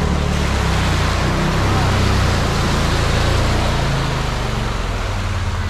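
Side-by-side buggy's engine running steadily while driving over the track, a low hum under a constant rush of wind and tyre noise.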